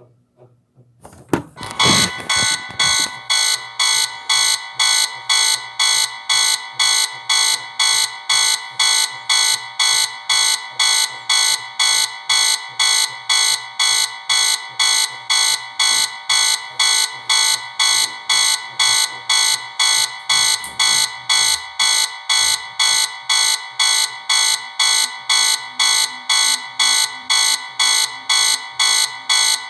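Electronic alarm beeping in rapid, even, high-pitched pulses, about two a second, starting suddenly about a second and a half in: sounded as a tornado emergency alarm.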